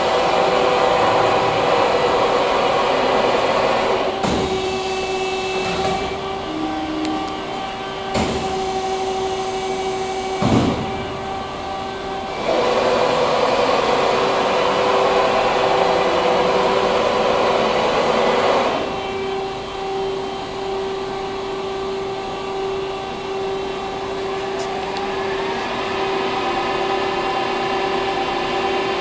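CNC plate drilling machine running: its spindles hum steadily with a whine while the drills cut into steel plate in long loud stretches, with a few sharp clunks in between.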